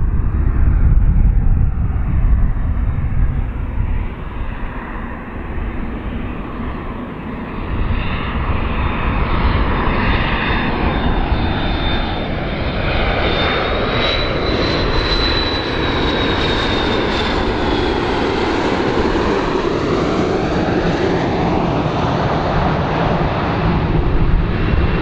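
McDonnell Douglas MD-80-series airliner on landing approach, its rear-mounted Pratt & Whitney JT8D turbofans running as it flies past. A high whine rises and then falls as it passes, about midway.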